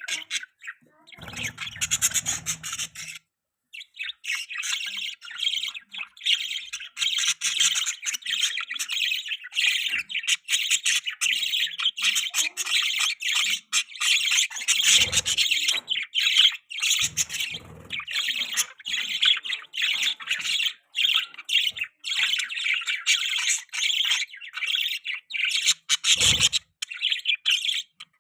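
Budgerigars chattering and chirping in a rapid, continuous warble, with a short pause a few seconds in. A few brief low thumps sound under the chatter.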